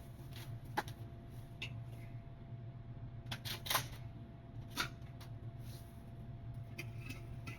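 A few scattered faint clicks and light knocks over a steady low hum.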